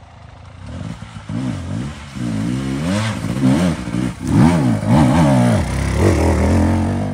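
Dirt bike engine revving up and down in repeated throttle bursts as the bike climbs a muddy trail toward the listener and passes close by, growing louder through the second half.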